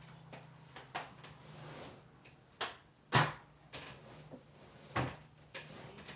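Kitchen cupboard doors and drawers being opened and shut: a series of about six knocks and bumps, the loudest a little past three seconds in.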